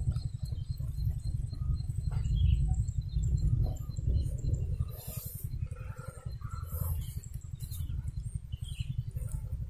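Outdoor ambience: a steady low rumble of wind on the microphone, with faint bird chirps and a few soft rustles and clicks.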